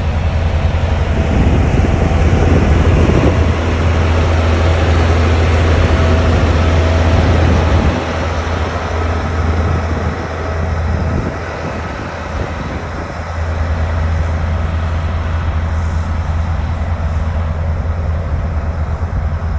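Caterpillar motor grader's diesel engine running with a deep, steady drone as the grader works loose soil and passes close by. The noise drops for a few seconds in the middle, then steadies again.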